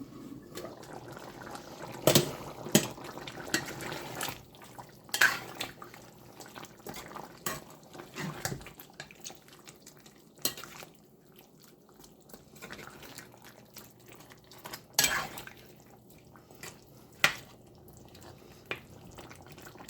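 A spoon stirring chicken curry in a metal pot, knocking and scraping against the pot about eight times, over bubbling liquid.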